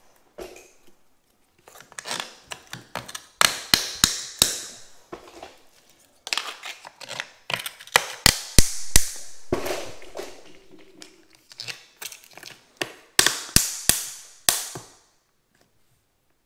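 Sharp clicks and knocks in three quick bunches, some with a brief ring after them, from setting a floor tile with plastic tile-leveling clips and wedges.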